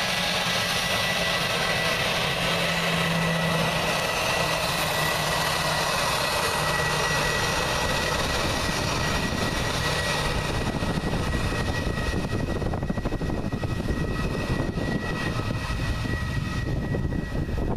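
Airbus A320's jet engines whining at taxi power as the airliner rolls past and turns away onto the runway. A steady high whine runs throughout. In the second half it dulls and a lower rumble grows as the engines' exhausts swing round toward the listener.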